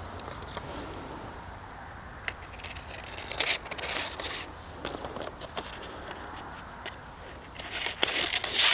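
Folding pocketknife blade slicing through a sheet of paper: two crackling, scraping cuts, about three and a half seconds in and again near the end, with light clicks of paper handling between. The edge is still cutting paper after being used on hard dead wood, perhaps a little less keenly.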